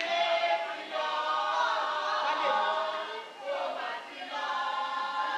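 A choir singing, several voices holding long sung notes.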